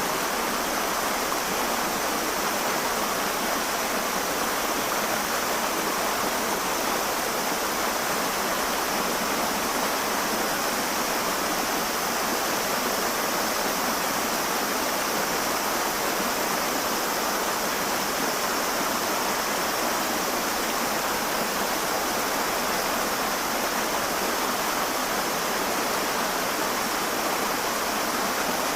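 River water flowing, a steady, unchanging rush of water.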